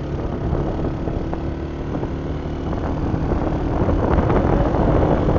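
A moving vehicle's engine and road noise, a steady hum with wind buffeting the microphone, growing louder about three seconds in.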